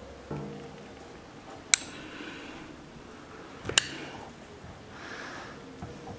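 Caulking gun in use applying silicone: two sharp clicks of the trigger about two seconds apart, with faint handling noise between.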